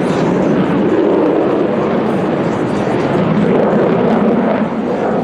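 Loud, steady jet noise from a twin-engine Boeing F-15SG fighter flying aerobatics, a dense low rushing sound that swells slightly about a second in.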